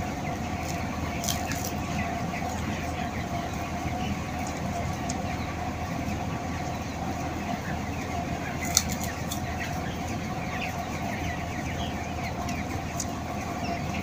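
A large flock of broiler chickens peeping and cheeping all together over a steady low mechanical drone and hum from the shed's machinery. A single sharp click about nine seconds in.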